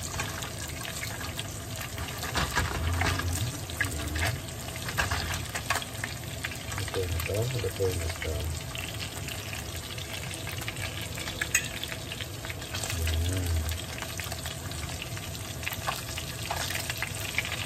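Halved pork longganisa sausages sizzling steadily in hot fat in a frying pan, with a fork clicking and scraping against the pan as the pieces are turned. They are frying in the fat left from the previous batch, with no fresh oil added.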